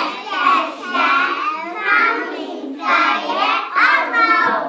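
Young children singing a song together in short phrases.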